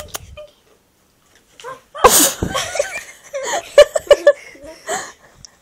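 A sudden loud breathy burst about two seconds in, followed by children laughing and giggling for a few seconds.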